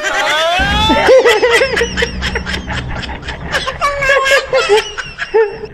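A man laughing in a string of short chuckling bursts, after a rising pitched glide in the first second.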